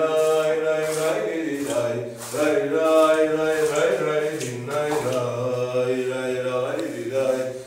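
A slow zeybek dance tune: long held notes that change pitch every second or two over a steady low drone.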